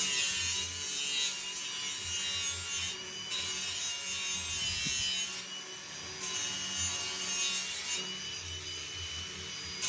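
Power tool sanding steel to clean it up for welding: three long passes of abrasive rasping with a steady whine, each followed by a short quieter gap, and a brief fourth pass near the end.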